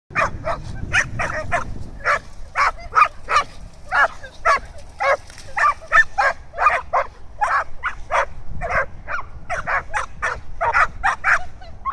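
Australian Shepherds barking excitedly and without pause, short sharp barks about two to three a second.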